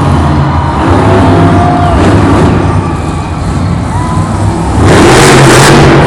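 Tasmanian Devil monster truck's supercharged V8 engine running loud as the truck drives out. About five seconds in it surges much louder as the throttle opens.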